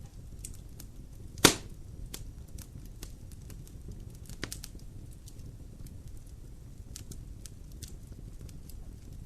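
Wood fire in a fireplace crackling, with a low steady rumble of flame under scattered small snaps and one loud pop about a second and a half in, and a smaller pop a few seconds later.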